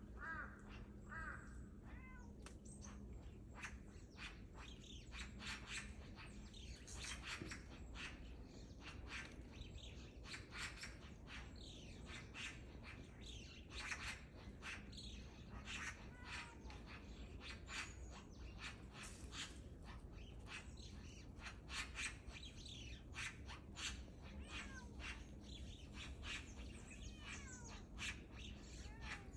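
A crow's short calls near the start, then a long run of sharp, irregular clicking sounds mixed with bird chirps, with a few more calls near the end.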